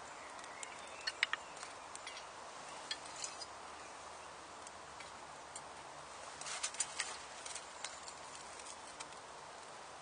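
Wood fire crackling in a tin-can hobo stove: irregular sharp pops and cracks over a steady hiss, with the loudest about a second in and a cluster near seven seconds.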